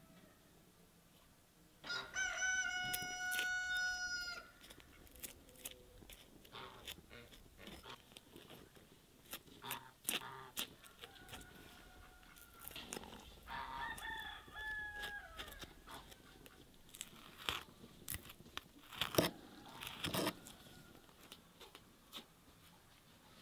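A rooster crows once, a long steady call about two seconds in, and a shorter, stepped call follows around the middle. Scattered clicks and knocks of knife work on a wooden cutting board run between the calls.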